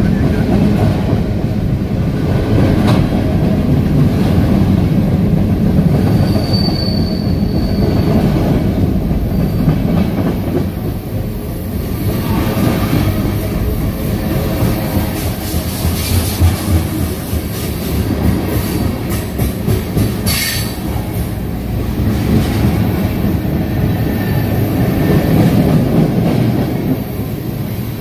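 Freight train of tank cars rolling past, a steady loud rumble with wheels clicking over the rail joints. A brief high wheel squeal comes about seven seconds in, and a short sharp sound about twenty seconds in.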